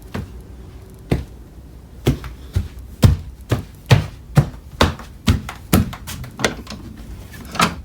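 A run of dull knocks. At first they come about once a second, then from about three seconds in they settle into a fairly even two a second.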